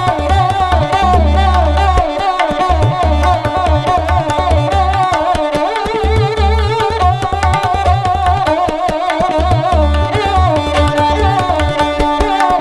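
Instrumental background music with a regular hand-drum beat under a gliding, ornamented melody.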